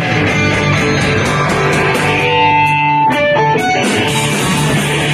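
A live rock band playing: electric guitars over drums, with a long held guitar note near the middle.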